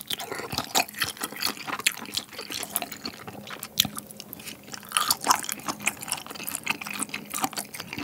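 Close-up chewing of glutinous-rice-battered fried squid in spicy tteokbokki sauce: wet, sticky smacks and many small mouth clicks.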